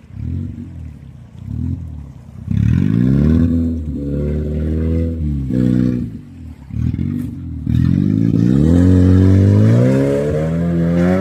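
Opel Frontera 4x4's engine revving hard and easing off several times as the vehicle drives into a stream crossing. The rush of splashing water comes in near the end.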